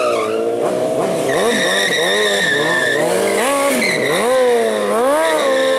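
Motorcycle engine revving up and down again and again as the bike is held in a drift, its rear tyre spinning on the asphalt. A high steady tyre squeal comes in about one and a half seconds in and again about four seconds in.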